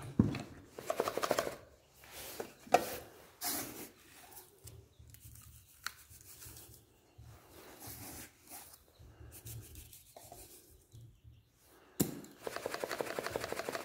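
Rubbing and scraping handling noises as chick feed and a plastic feeder are handled. Near the end there is a sharp click, followed by a quick rattling scrape.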